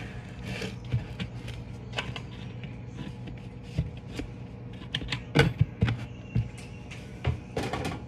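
Irregular clicks, knocks and rustling from hands handling things at a kitchen counter, among them a paper towel, with a denser run of rustles and taps near the end. A steady low hum sits underneath.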